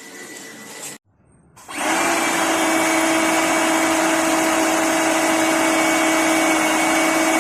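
LAKONI Laguna 70 pressure washer's electric motor starting up after a brief quiet gap and running steadily and loudly, a constant hum with a steady whine over it.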